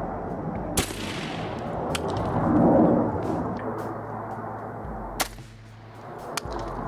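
Shotgun firing a homemade sabot dart round loaded with 30 grains of black powder: one sharp report about a second in with a trailing echo, followed by a long, deeper rumble that is loudest in the middle. Another sharp crack comes about five seconds in.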